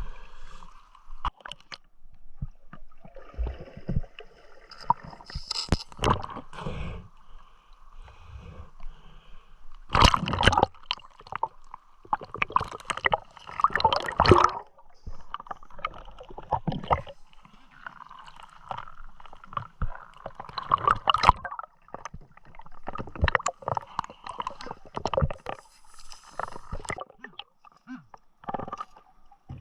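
River water sloshing and gurgling in uneven surges as a person wades and dives through it, with sharp splashes scattered throughout.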